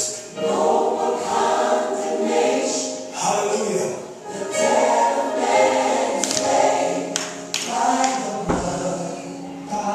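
Gospel music: a choir singing with accompaniment.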